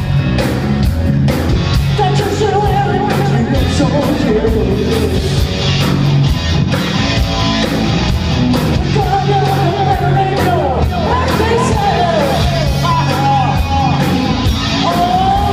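Live hard-rock band playing loud: male lead vocals over distorted electric guitars, bass and a steady drum beat. The singing comes in about two seconds in and carries on over the band.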